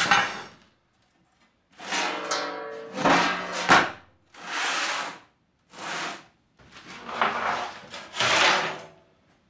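A folded sheet-steel panel being slid, lifted and set down on a steel workbench: a string of scraping and clanking noises with short silences between them, some ringing briefly like struck metal.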